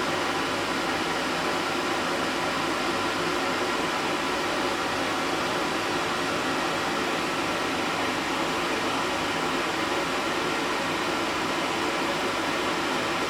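Steady machine hum with hiss, even in level.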